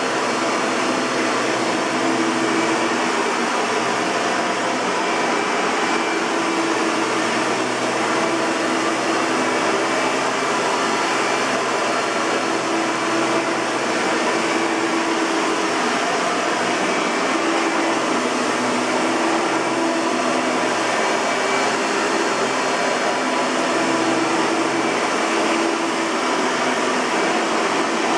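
1997 Hoover TurboPower 4000 Elite upright vacuum cleaner running steadily: a constant rush of air with a motor whine, and a low hum that swells and fades now and then.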